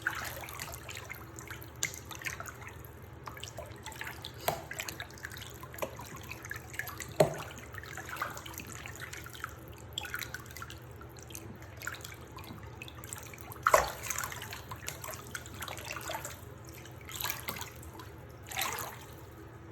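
Water splashing and dripping in a small basin, in irregular small splashes, with two sharper, louder splashes about 7 and 14 seconds in.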